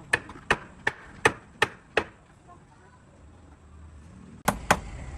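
Sharp knocks of a tool striking, about three a second, stopping about two seconds in, then two more knocks near the end.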